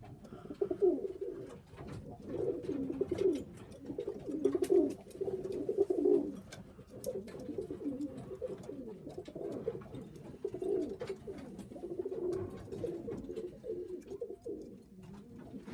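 Pigeons cooing again and again in low, repeated phrases, with faint clicks and taps in between.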